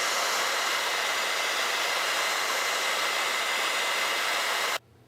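Hair dryer blowing steadily, heating the back of an iPhone 3GS case to soften the battery adhesive; it cuts off suddenly near the end.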